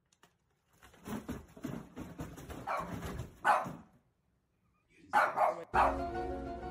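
Shiba Inu-type dog barking and yowling in a string of rising calls, the loudest about three and a half seconds in, then more calls after a short pause.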